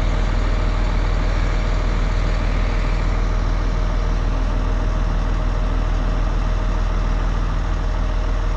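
Truck engine idling steadily: a constant low rumble with a steady whine over it.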